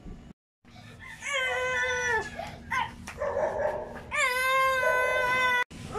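A child's drawn-out whining, strained vocal sounds: long held notes that bend downward at their ends, two long ones with shorter whimpers between, as she strains to pull a heavy case.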